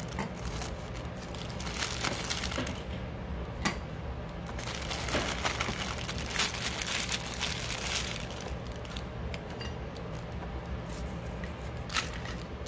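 Crackers being handled and stacked into a square glass jar: scattered rustling bursts with a few light clicks, one about four seconds in and one near the end.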